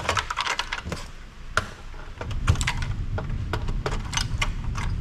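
Irregular clicks and clinks of hand tools and loose metal parts being handled while an old power amplifier is taken apart for scrap. A low rumble of handling joins about halfway through.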